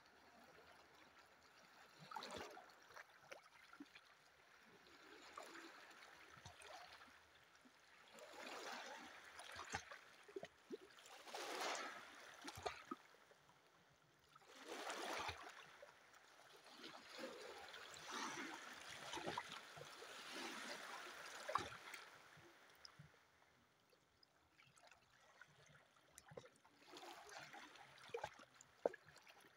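Faint small sea waves lapping and sloshing against shoreline rocks, swelling and fading every few seconds, with little splashing clicks.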